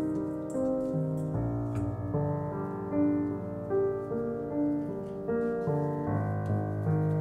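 Background music: a gentle piano piece, its notes changing every half second or so over a slowly shifting bass line.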